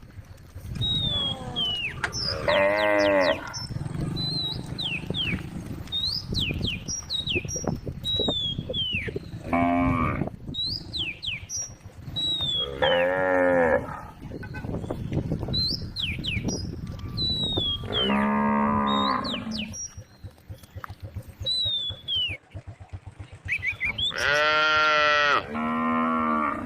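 Cows mooing, about six long moos spread out, the last two back to back near the end.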